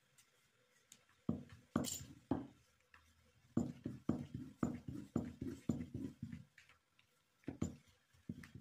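Wooden rolling pin rolled back and forth over a ball of bread dough on a smooth tabletop: a run of low rubbing strokes, settling to about two a second.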